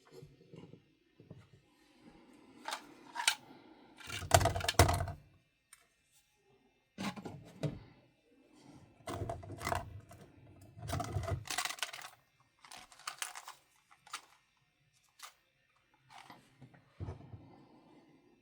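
Hard plastic clicks, knocks and rattles of 3D-printed planter pots being handled and set down, in irregular clusters with short quiet gaps between them.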